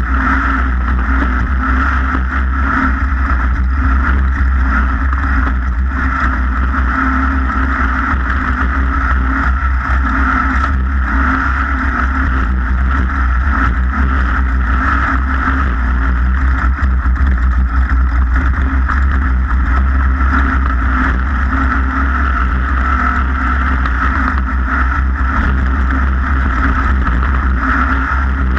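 A race vehicle's engine running steadily at speed, with rushing noise over it, heard from on board. The pitch and loudness hold level throughout.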